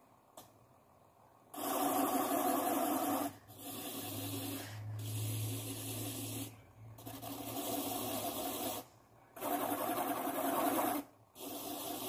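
Felt-tip pen pressed against the spinning cardboard hub of a homemade fan, its tip scraping against the turning cardboard as it draws rings. The scraping starts about a second and a half in and comes in stretches of one to two seconds, broken by brief gaps where the pen lifts off.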